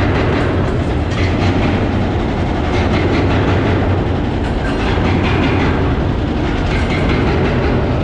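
Excavators demolishing a concrete overpass: a steady, loud heavy-machinery rumble with irregular crunching and clattering as concrete is broken up.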